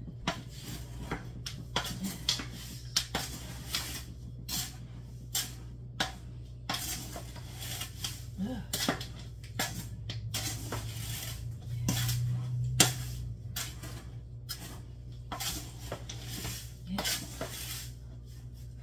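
Spoon scraping and clinking against the inside of a large aluminum stockpot as dry spices and powdered drink mix are stirred, in short irregular strokes over a steady low hum.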